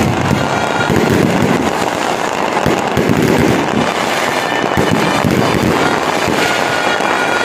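Fireworks display going off without pause: a dense, continuous run of bangs and crackling from aerial shells bursting overhead.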